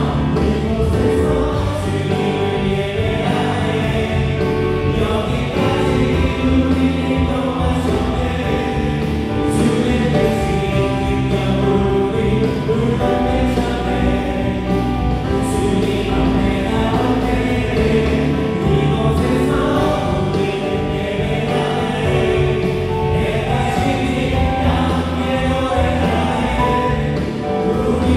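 Live contemporary worship band playing a praise song: electric guitar, bass guitar, keyboards and drums, with voices singing.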